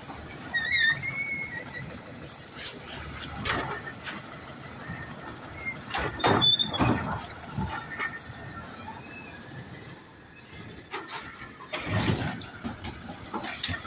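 Automated side-loader garbage truck running while its hydraulic arm empties a wheeled cart. There are loud knocks as the cart is tipped and shaken over the hopper about six seconds in, short high squeals, and further thumps and air-brake noise near the end.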